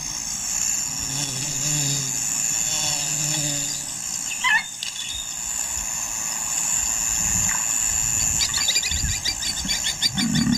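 Ambience of the African bush: a steady insect chorus. A short gliding call comes about halfway, and quick chattering calls come near the end.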